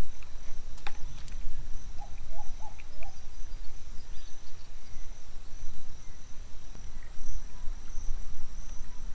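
Insects trilling steadily at a high pitch over a low rumble, with a sharp click about a second in and a few short chirps between two and three seconds.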